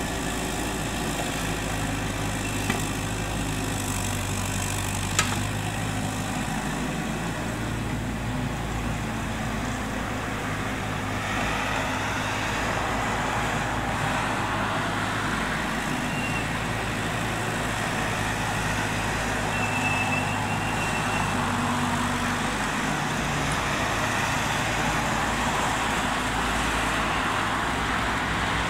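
Bobcat 331 mini excavator's diesel engine running steadily as it digs, its low hum stepping up and down as the arm works. Road traffic passes, adding a rising hiss partway through, and there are two sharp clicks a few seconds in.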